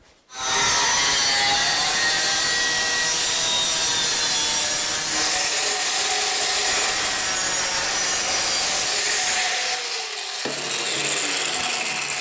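An electric power tool cutting sheet metal, with a loud, steady cutting noise that starts abruptly. About ten seconds in the cutting stops and the motor's pitch falls as it winds down.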